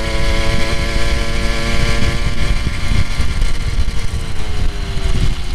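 Motorized bicycle's small gasoline engine running steadily, its pitch falling over the last two seconds as it slows, over a low rumbling noise.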